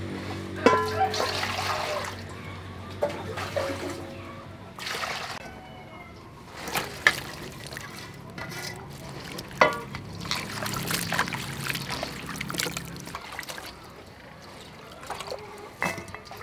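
Water poured from a dipper into a metal basin, then hands swishing and rinsing chopped vegetables in the water, with splashes, drips and occasional sharp knocks against the basin.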